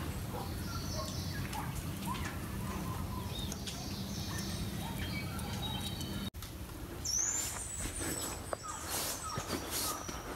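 Small forest birds chirping and calling over a low steady rumble. The sound cuts out briefly about six seconds in, after which a high whistled call comes, then footsteps on a dirt trail.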